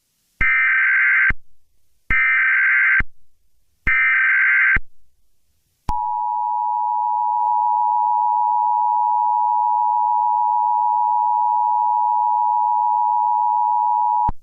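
Emergency Alert System alert header: three short data bursts about a second each with short gaps between them, then a click and the steady two-tone EAS attention signal held for about eight and a half seconds, cutting off suddenly near the end.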